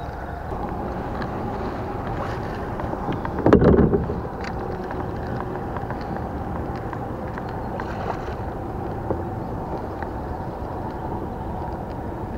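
Steady light wind noise on the microphone and water around a kayak, with one short loud thump about three and a half seconds in.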